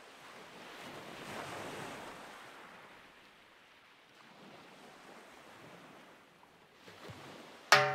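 Ocean surf, soft waves swelling and washing back twice. Music with drums starts abruptly just before the end and is much louder.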